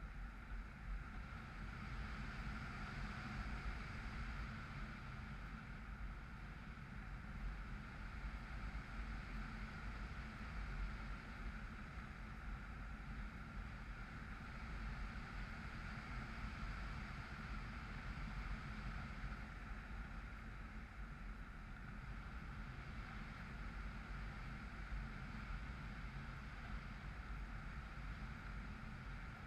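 Faint, steady rush of airflow with a steady whine from the Bixler's brushless electric motor and 6x5-inch propeller in cruising flight, picked up by the onboard camera.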